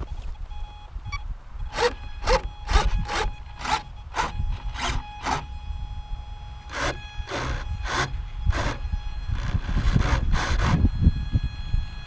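Wind buffeting the microphone in a low rumble, with a run of short, sharp noises, two or three a second, over a faint steady whine.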